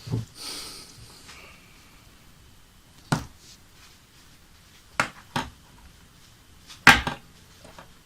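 A few separate sharp knocks and clicks of small hard parts being handled and set down on a work surface, the loudest near the end, with a short hiss after the first.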